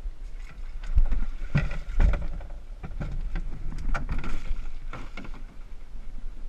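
A canoe being boarded from a rocky shore: a series of hollow knocks and thumps against the hull, the heaviest about one and two seconds in, with water sloshing around the boat.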